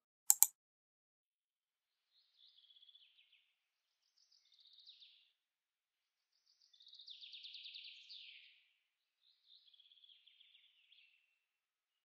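Faint songbird twittering in four short phrases a second or two apart, the third the loudest. Two sharp clicks come right at the start.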